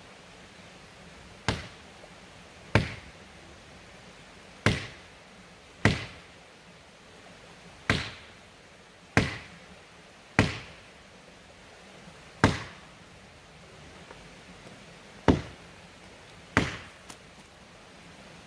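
Axe chopping into wood at the foot of a tree: about ten single, sharp strikes at uneven intervals of one to three seconds.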